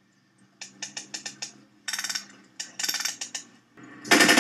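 Airsoft guns firing: a quick string of single sharp cracks, then short rattling full-auto bursts. The loudest burst comes near the end.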